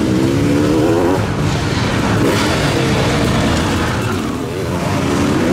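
Sidecarcross outfits' motocross engines revving hard on a dirt track, one engine's pitch rising over the first second, with several engines overlapping. The sound eases slightly near the end, then swells again as more outfits come close.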